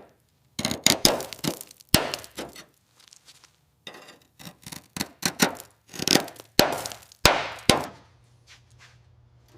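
Equipment being handled and set down on a hard floor: an irregular run of knocks and metallic clanks, several close together, some ringing briefly, dying away about two seconds before the end.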